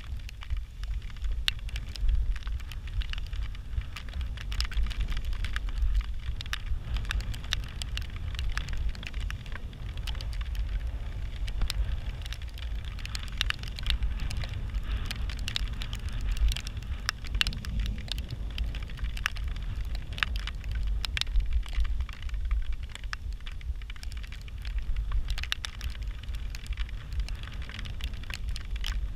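Bicycle riding with the microphone exposed: a steady low rumble of wind on the microphone, with frequent sharp crackling ticks scattered over it.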